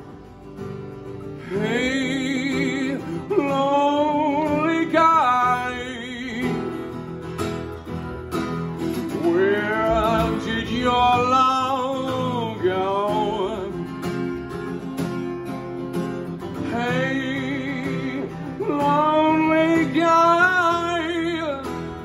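A man singing long wordless phrases with heavy vibrato over a strummed ukulele, in four phrases with short gaps between them.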